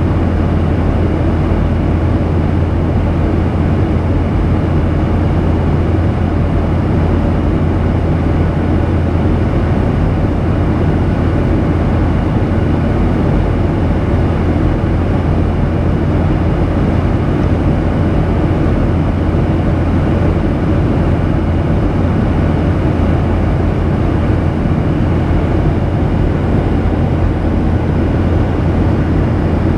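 Steady in-cabin drone of a Boeing 737-800 in cruise, heard at a window seat over the wing: its CFM56-7B turbofan engines and the airflow past the fuselage make an even, unchanging noise with a strong deep hum.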